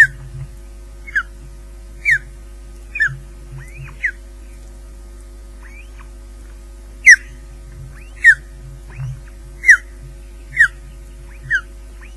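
Osprey calling: a series of about ten short, sharp whistles, each sliding downward in pitch, roughly one a second with a pause of a few seconds in the middle.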